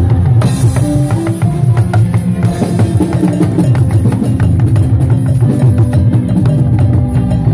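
Yoruba talking drum struck with a curved stick in quick strokes, its notes stepping up and down in pitch, over loud backing music with a strong low bass and drums.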